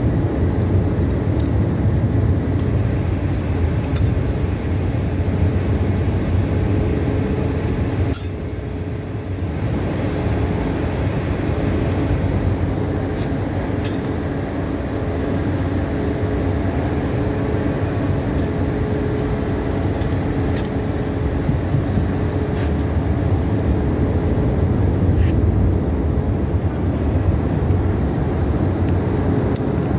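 A steady low mechanical hum with a faint steady tone in it, with scattered small metallic clinks throughout. It dips briefly about eight seconds in.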